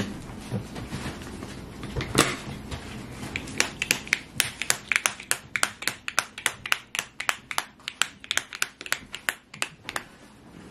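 Plastic compartment lids of a weekly AM/PM pill organizer being snapped shut one after another. After a single louder click about two seconds in, there is a quick run of sharp clicks, about four a second, that stops just before the end.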